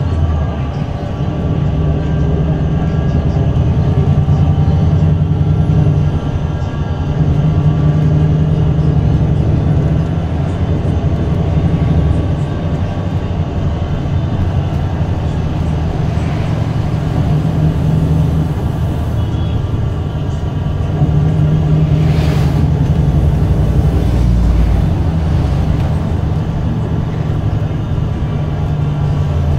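Golden Dragon XML6105JHEVG5C6 plug-in hybrid city bus under way, heard from inside the cabin: its Shangchai 6.4-litre diesel engine runs with a low drone that rises and falls every few seconds as the bus drives, over road and body noise.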